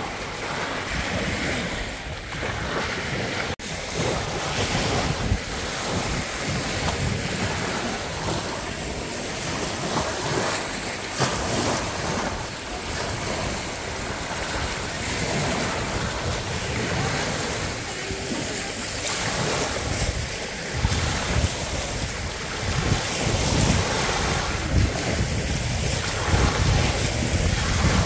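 Small sea waves breaking and washing up a sandy beach in a steady rush, with wind buffeting the microphone in low gusts that grow stronger in the second half.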